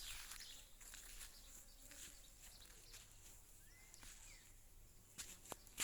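Near silence: faint outdoor garden ambience with a steady high hiss, two faint short chirps about four seconds in, and a few soft clicks near the end.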